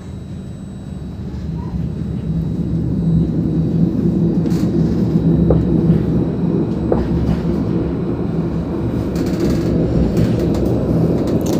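Tram running along its track, heard from inside the car: a low rumble that grows louder over the first three seconds or so, then holds steady.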